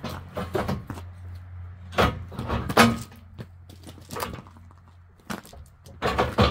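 A steel hand pallet jack being hauled over gravel and handled: irregular metal clanks and rattles, loudest about two and three seconds in and again near the end as it is lifted. A low steady hum runs underneath.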